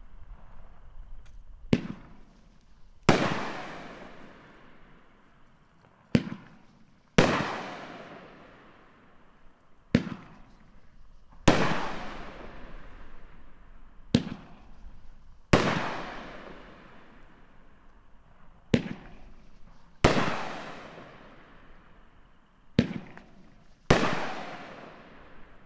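Wise Guys 500g consumer firework cake firing six shots, about one every four seconds: each a sharp launch thump, then a louder aerial break a second or so later that fades away over two or three seconds.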